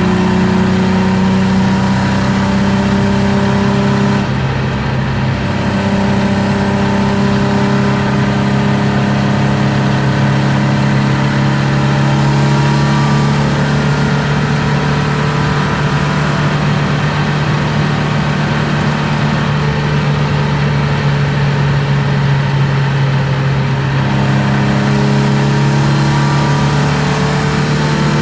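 BMW M50B25 2.5-litre inline-six with aftermarket headers and exhaust, heard from inside the cabin, running hard under load at speed. Its pitch climbs slowly over many seconds, with a brief break about four seconds in.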